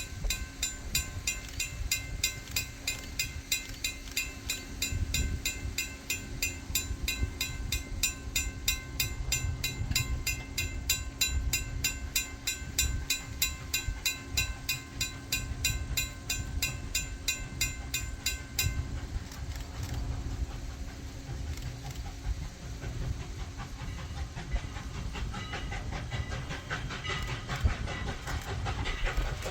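Steam locomotive running by with hissing steam and wheel clatter, while a bell rings rapidly in quick, even strokes that stop abruptly about two-thirds of the way through.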